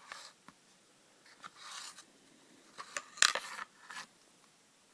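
Inner barrel and hop-up unit of a G&G MP5A4 airsoft gun being pushed and slid out of the gun: small clicks, a scraping slide about two seconds in, then a sharp clack just after three seconds and a lighter one about a second later.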